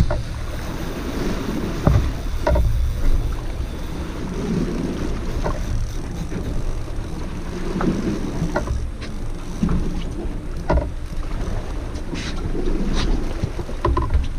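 Wind buffeting the microphone over water moving around a small fishing boat, a steady rumble, with scattered light clicks and knocks from on board.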